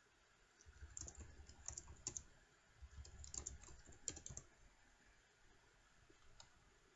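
Faint typing on a computer keyboard: a quick run of key clicks from about a second in to the middle, then one more click near the end.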